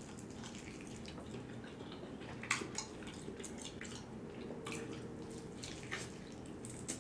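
A person eating, with a few short wet mouth clicks and smacks while chewing, over a low steady room hum.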